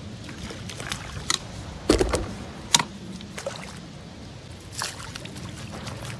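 A few short water splashes and knocks over a steady low background. The strongest comes about two seconds in, with smaller ones before and after.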